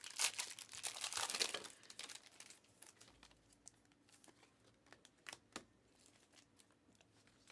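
Trading-card pack wrapper crinkling and rustling for about two seconds as a pack is handled or opened, then scattered light clicks and taps of cards being handled.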